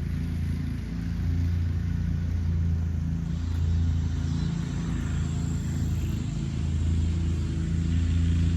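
Steady low rumble of a motor vehicle, like engine and road noise.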